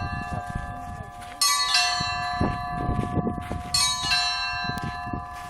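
A set of church bells rung by hand: several bells of different pitches struck together in clusters, with fresh strikes about a second and a half in and again near four seconds, each ringing on between strikes.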